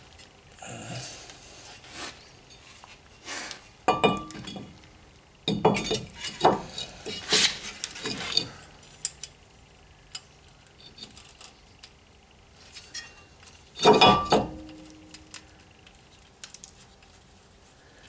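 New Brembo brake disc being fitted by hand onto an Opel Corsa D's front wheel hub: scattered metal clinks and knocks, a few of them ringing briefly, the loudest about fourteen seconds in.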